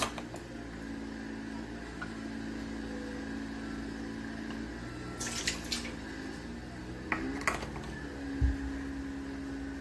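Orange juice poured from a bottle into a metal measuring cup and then into a stainless steel bowl, over a steady background hum. A few light clinks come a little past the middle, and a low thump near the end as something is set down.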